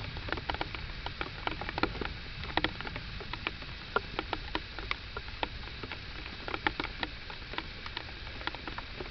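Raindrops pattering in scattered, irregular light ticks over a low rumble.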